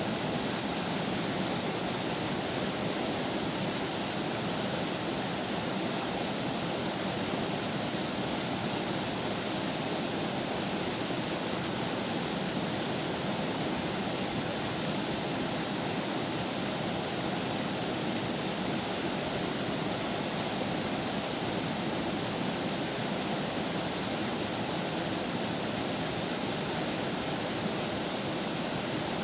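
River water running steadily, an even rushing with no breaks or changes.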